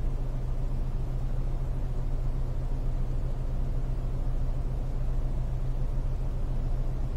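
Cabin noise of a Fiat Panda 4x4 on the move: its TwinAir two-cylinder turbo engine running at steady revs under road rumble, one even low drone that does not change.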